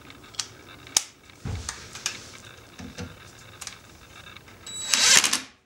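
Scattered clicks and knocks of a socket and tools against the rear brake drum and hub, then, near the end, a short loud burst from a Craftsman cordless impact wrench that stops abruptly.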